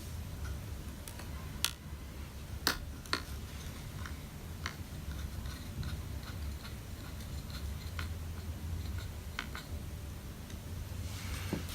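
Scattered small clicks and taps of tools and parts being handled during work inside an open laptop, two sharper clicks early on and lighter ticks after, over a steady low hum.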